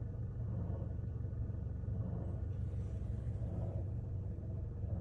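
Scion xD's engine bay with the engine running and the A/C compressor making a steady low drone with several even tones above it. This is the weird noise the owner puts down to the A/C compressor.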